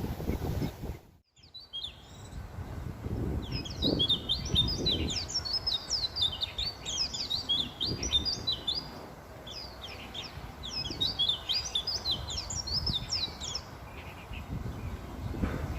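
White-eye (pleci) singing: a fast, high, twittering warble in two long phrases, the first starting about three seconds in and the second about nine seconds in. Low, uneven background noise runs under it.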